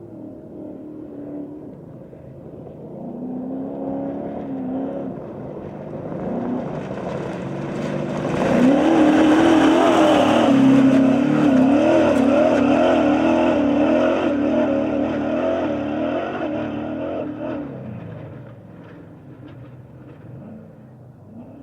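Unlimited production desert race truck's engine running hard as it approaches, passes close by and drives away, its pitch wavering up and down as the throttle works over rough ground. It grows louder over the first several seconds, is loudest for the middle stretch, and fades away near the end.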